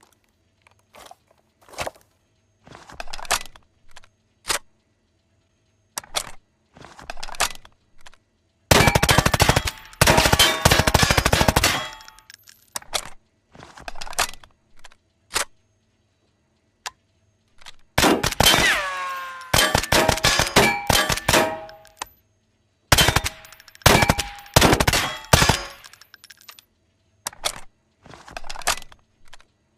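Type 64 suppressed submachine gun firing: scattered single shots and short bursts, with long automatic bursts about nine and eighteen seconds in and a few quick bursts after them. Metallic ringing sounds among the shots in the middle bursts.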